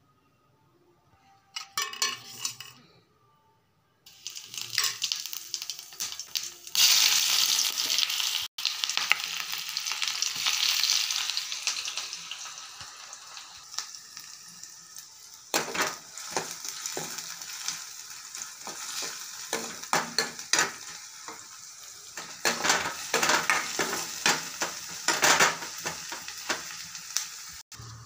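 Chopped onions sizzling as they fry in hot oil in a pan. The sizzle swells loud early on and then settles to a steadier hiss, and from about halfway a spatula scrapes and clatters against the pan as they are stirred.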